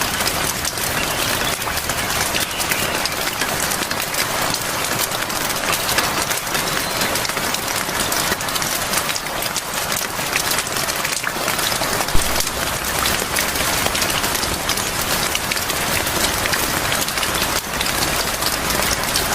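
Rain falling steadily: an even hiss with many small drop ticks throughout, and one sharper knock about twelve seconds in.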